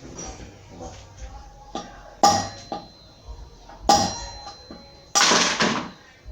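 Hammer striking a metal drift to knock a worn motorcycle wheel bearing out of the hub: a few sharp metal blows with a ringing tail, then a longer, harsher metallic burst near the end.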